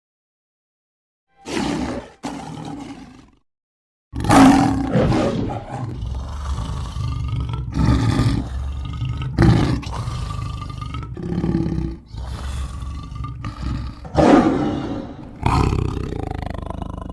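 Lion roar and growl sound effects: after a moment of silence, two short growls, a brief pause, then from about four seconds in a string of roars, each a second or two long with short breaks between, the loudest near the start of the string and again near the end.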